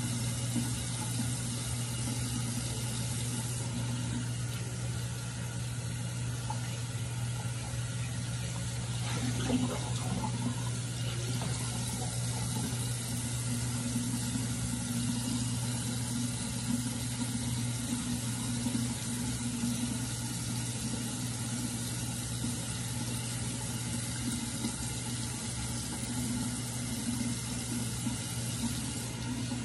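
Bathroom sink tap running steadily into the basin while a clay face mask is washed off with a washcloth, over a steady low hum.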